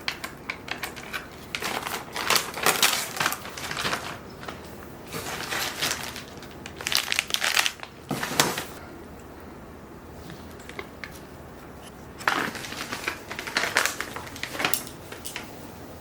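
Items being handled, with crinkling and light clicks and clatters coming in irregular bursts and a quieter stretch of a few seconds in the middle.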